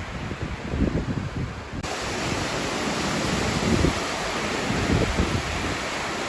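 Strong gusty wind buffeting the microphone, with a sudden step up to a louder, steady rushing hiss about two seconds in.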